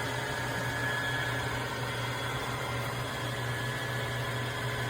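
Tineco iFLOOR 3 Breeze wet-dry floor cleaner running its self-cleaning cycle at the brush-roller cleaning stage: a steady motor hum with a whine, unchanging throughout.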